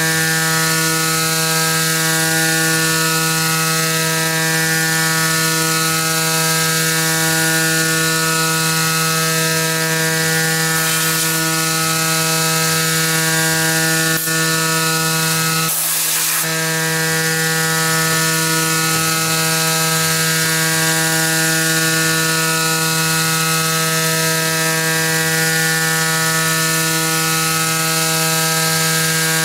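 Tormach 440 CNC mill cutting aluminum: a steady, even-pitched whine of the spinning cutter chewing through the metal, with chip hiss. It has a short break about halfway where the sound drops and then picks up again at the same pitch.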